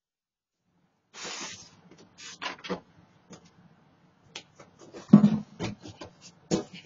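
Scuffs, knocks and a heavy thump as a man climbs up onto and over a painted porch railing, heard through a doorbell camera's microphone. A short rustle comes about a second in, and the loudest thump comes about five seconds in.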